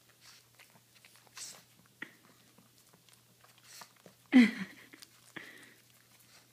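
Small dogs biting and chewing pieces of apple, with soft scattered crunches and one short, much louder burst about four seconds in.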